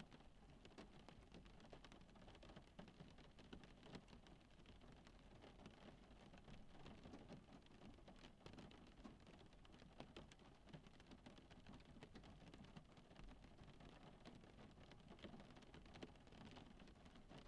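Rain falling on a car's roof and windows, heard from inside the cabin: a faint, steady patter of many small drop ticks.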